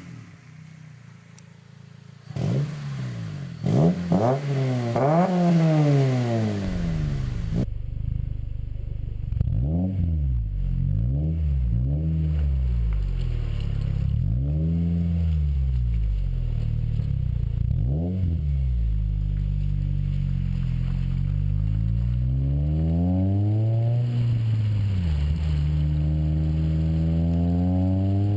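2011 Honda Civic Si's 2.0-litre four-cylinder engine breathing through a new Vibrant Street Power aftermarket exhaust, revved again and again, its note climbing and dropping in quick blips and then in longer sweeps.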